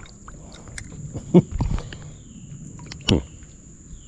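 A few short knocks and thuds from hauling a magnet-fishing catch up beside a kayak, the loudest about a second and a half in and another near three seconds. A steady high insect buzz runs behind them.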